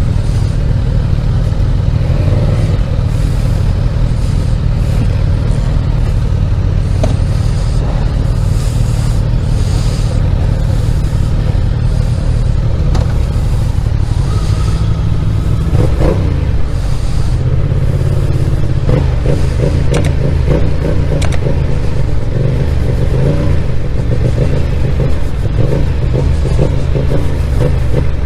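Motorcycle engines running at low speed, with the deep exhaust rumble of the nearest bike dominating. About halfway through, a brief rising rev is heard, followed by a quick pulsing engine beat as the bikes pull away.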